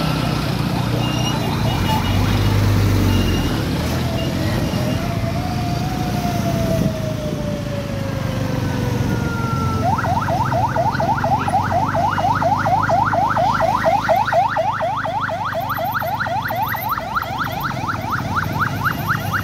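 Electronic siren in heavy traffic: a slow falling tone a few seconds in, then from about halfway a fast rising yelp that repeats about five times a second. Under it runs the low rumble of idling motorbike and vehicle engines.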